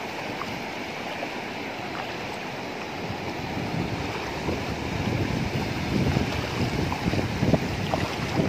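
Sea surf washing through the shallows, a steady rushing hiss, with wind buffeting the microphone in low gusts that grow louder from about halfway through.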